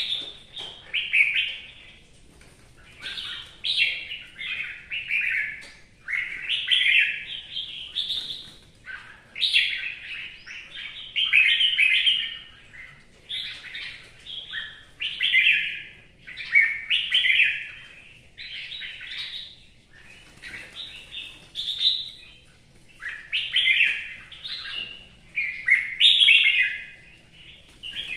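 Caged red-whiskered bulbul singing: loud, short warbled phrases, one after another with brief pauses between them.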